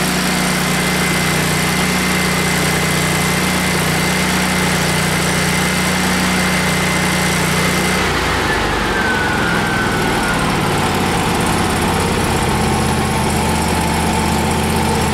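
Miller Bobcat 250 generator's 20 hp Kohler twin-cylinder overhead-valve engine running steadily after a cold start on the choke. About halfway through, its note changes and a high whine slides lower, as though the engine is dropping to a slower speed.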